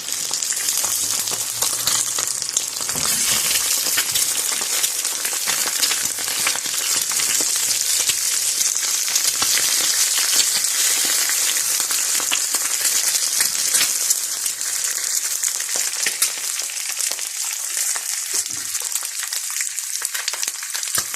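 Egg frying in hot oil in a pan: a steady sizzle thick with small crackling pops, easing slightly in the last few seconds.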